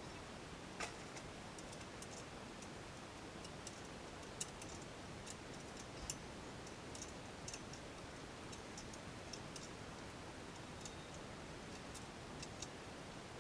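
Scattered light clicks and ticks at irregular spacing, about one a second, over a steady faint hiss.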